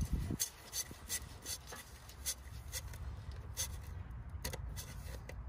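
New oil filter being spun on by hand: a run of light rubbing clicks and scrapes, a few a second, as it turns against its mounting.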